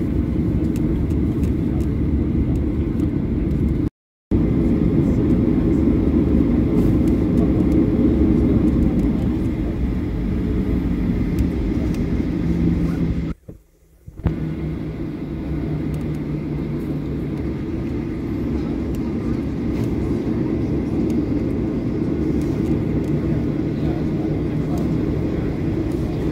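Steady cabin rumble of a Boeing 737-800 taxiing, its CFM56-7B turbofans running at low power. The sound cuts out briefly twice: about four seconds in and again about halfway through.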